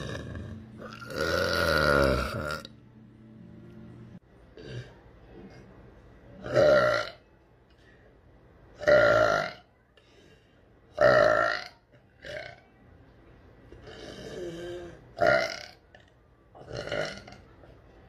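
A woman burping loudly, over and over: one long, drawn-out burp near the start, then a string of shorter burps about every two seconds.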